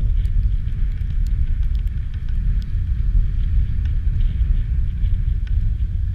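A Can-Am Outlander ATV's engine running at a distance as it circles on the ice, mostly covered by wind buffeting the microphone in a steady low rumble.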